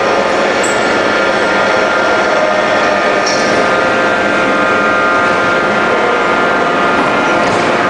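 Steady drone of heavy forging-shop machinery, with several steady whining tones over a dense noise and no hammer blows.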